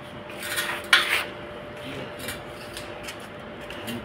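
Stainless steel railing rods and fittings knocking and clinking against each other as they are fitted into the posts, with one sharp metal knock about a second in and lighter clicks after it.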